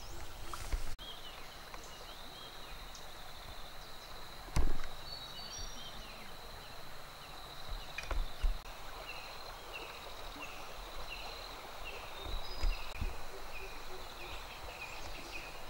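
Outdoor wildlife ambience: a steady high-pitched insect buzz through the first half. Later a bird calls in short repeated chirps about twice a second. A few dull thumps stand out, the loudest about four and a half seconds in.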